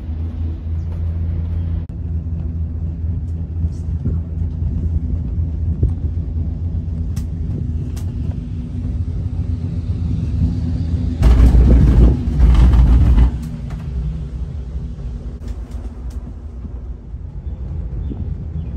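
Steady low hum and rumble inside a moving cableway gondola cabin. About eleven seconds in, a much louder rumble lasts about two seconds, then the steady hum returns.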